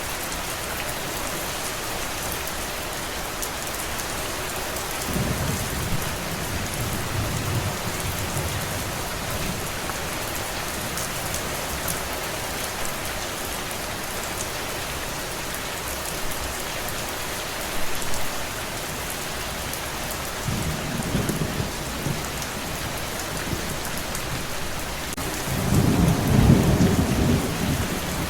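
Steady, even rain with thunder rumbling low three times: about five seconds in, again around twenty seconds, and loudest near the end.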